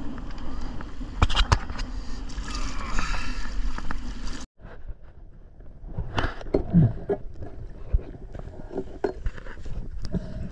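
Seawater sloshing and splashing around a swimmer at the surface, with a few sharp knocks. After an abrupt cut it gives way to muffled underwater sound, with scattered clicks, knocks and gurgling.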